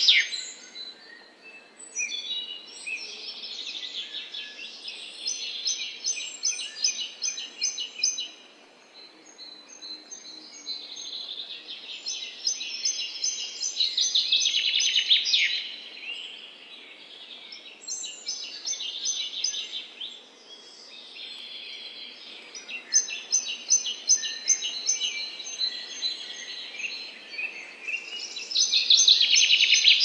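Wild songbirds singing and chirping in a continuous chorus of high phrases and quick runs of repeated notes, swelling louder at the start, about halfway through and near the end.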